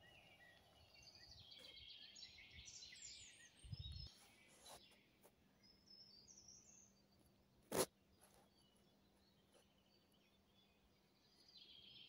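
Faint songbirds singing in short chirping phrases, with a brief low thump about four seconds in and a single sharp click near eight seconds, which is the loudest sound.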